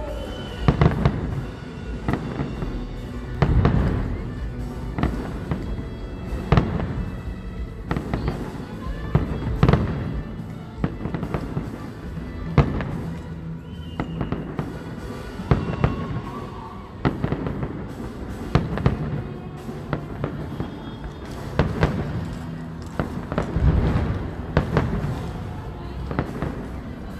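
Aerial fireworks salute going off: a loud bang about every three seconds, with lighter crackling in between.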